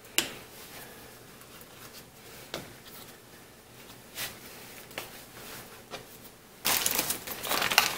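Soft rustling of a flour tortilla being rolled around a bean filling on a plastic cutting board, with a few light knocks. Near the end a plastic zip-top freezer bag starts crinkling loudly.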